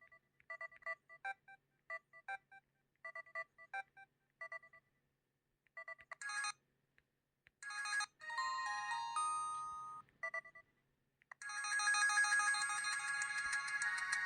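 LG KG800 Chocolate mobile phone playing electronic ringtones through its speaker: several short melodies of clipped beeping notes separated by gaps, then a louder, denser ringtone starting about eleven seconds in and carrying on.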